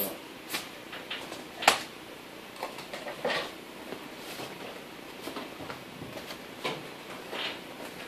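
Foil-faced rigid foam insulation board being handled and pressed into a garage door panel: scattered crinkles, rustles and light knocks, the sharpest knock about two seconds in.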